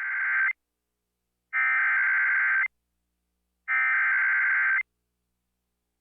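Emergency Alert System SAME header: three bursts of warbling two-tone digital data, each about a second long with a second's silence between, the first already underway at the start. It is the coded header that sets off alert receivers for a severe thunderstorm warning.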